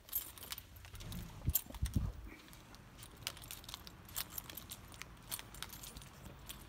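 Light metallic jingling and clicking in irregular short bursts while a person walks across a carpeted floor, with a few low thuds about one to two seconds in.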